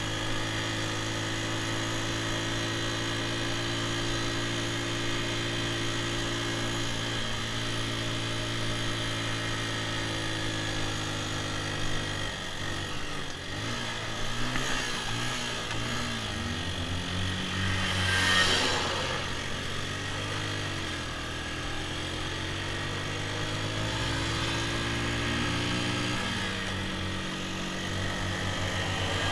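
Small dirt bike engine running while riding, heard from on board: a steady note for the first dozen seconds, then wavering and rising and falling with the throttle before settling again. A short rush of noise about two-thirds of the way through is the loudest moment.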